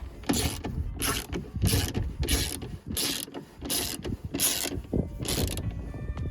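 Ratchet tool being worked back and forth in about eight steady strokes, driving in the screws that hold a car door lock in place; the strokes stop about a second before the end.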